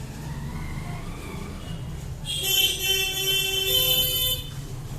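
A vehicle horn honks for about two seconds, starting a little under halfway in, over a low steady rumble like traffic.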